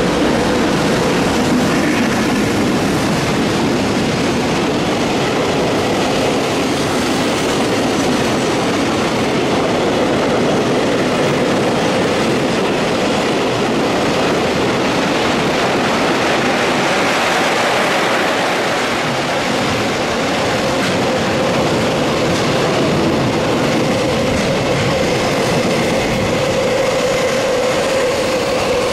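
Long container freight trains behind electric locomotives running through a station at speed: a steady, loud clatter of wheels on rail with clickety-clack over the joints and a thin, steady whine running through it.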